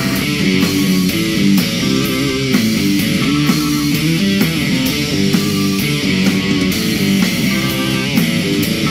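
Live rock band music led by an electric guitar, playing over a steady beat of about two hits a second.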